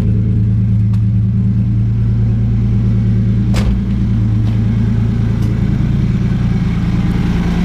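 Swapped Toyota 1JZ VVTi straight-six idling steadily on its own, warm enough now after a cold start to hold idle without help. A single sharp click sounds about three and a half seconds in.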